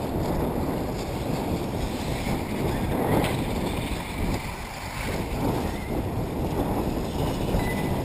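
Wind buffeting the microphone: a steady low rumble, dipping briefly about halfway through.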